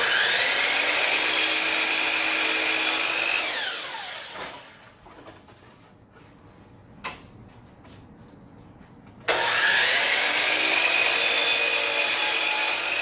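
DeWalt miter saw whining up to speed and cutting through a cedar board, then spinning down with a falling whine. After a pause with a single knock, it starts again for a second cut and winds down near the end.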